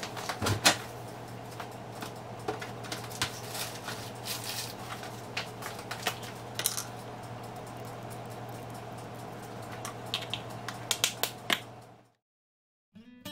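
Kitchen room tone: a steady low hum with scattered light clicks and taps, a louder knock about half a second in. The sound cuts to silence about a second before the end.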